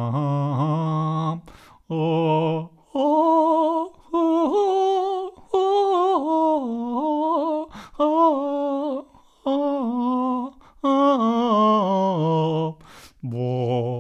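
One voice singing a wordless melody, a cappella, in short phrases with a wavering vibrato and brief gaps between them.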